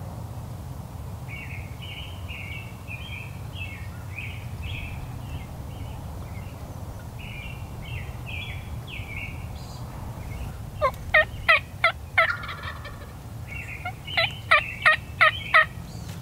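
Wild turkey calling. A faint run of short high notes carries through the first half, then two loud series of about five sharp notes each come near the end, roughly three a second.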